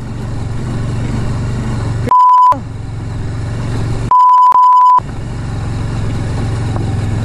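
Motorcycle engine running steadily at low speed, cut twice by a steady high-pitched censor bleep: briefly about two seconds in, and for nearly a second about four seconds in, with all other sound dropping out under it.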